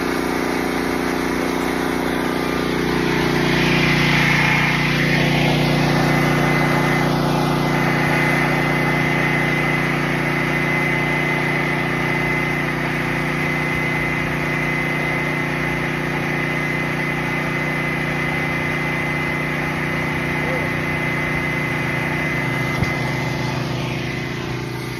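A small engine running steadily: a constant hum with a thin high whine over it.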